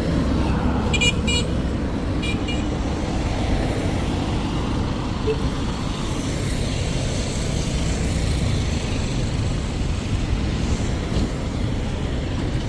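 Road traffic noise: a steady rumble of passing vehicles, with short car horn toots about a second in and again just after two seconds.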